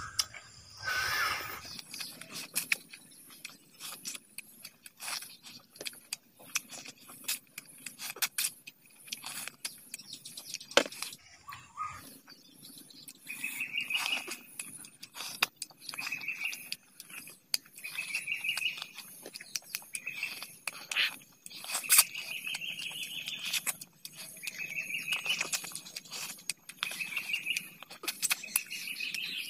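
Close-up eating sounds: a man chewing, smacking and sucking as he bites and gnaws at a piece of curried mutton head held in his hands, with many sharp mouth clicks. From about halfway, short runs of chirping repeat every couple of seconds in the background.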